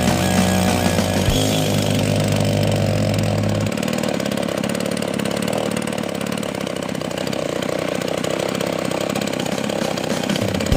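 Two-stroke chainsaw engine rigged as a boat motor, running at high revs with a steady buzz; the deep low tone under it drops away about four seconds in.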